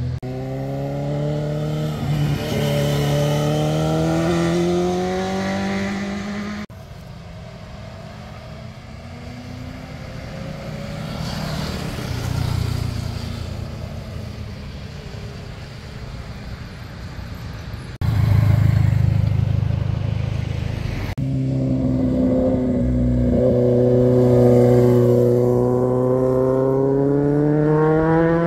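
Motorcycle engines accelerating through a hairpin bend, pitch rising as each bike pulls away; several passes are cut together, with abrupt changes about 7, 18 and 21 seconds in.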